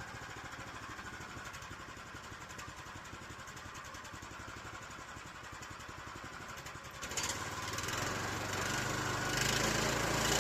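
A small engine running steadily with a rapid, even beat. About seven seconds in it becomes louder and fuller, and it cuts off suddenly at the end.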